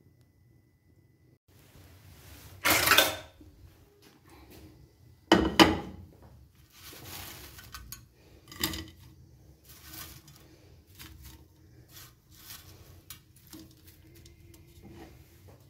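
Kitchenware clattering as fried potato sticks are handled in a pan and on a plate: two loud clatters in the first six seconds, then lighter knocks and rustles.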